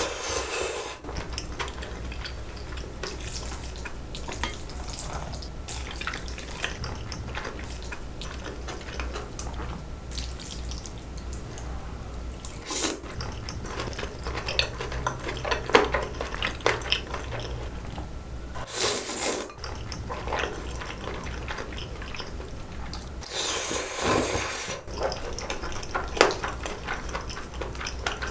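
Close-up eating sounds of saucy bibim noodles: several long, wet slurps, with chewing and metal chopsticks clicking against the bowl in between.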